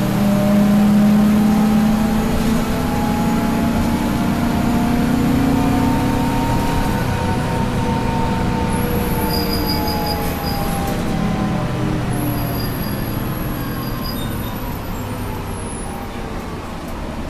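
A Detroit Diesel 6V92TA two-stroke V6 in a 1992 TMC RTS transit bus, heard from inside the bus while riding: the engine pulls with its pitch slowly rising, then drops away about seven seconds in as it eases off. A faint high whine comes and goes in the second half.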